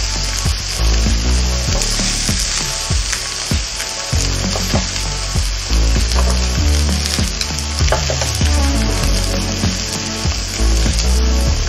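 Beef rib steak and sliced vegetables sizzling on the hot plates of an electric grill, with occasional clicks of metal tongs turning the vegetables.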